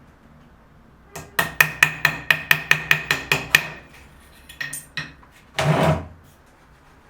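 A hammer tapping quickly, about a dozen ringing blows at roughly four or five a second, then a few lighter taps and a brief scrape near the end.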